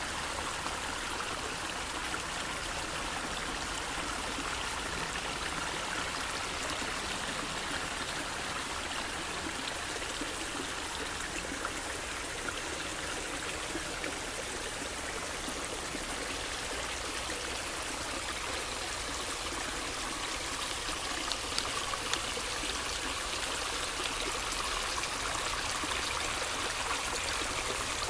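Shallow brook flowing over stones, a steady babbling trickle that grows a little louder near the end.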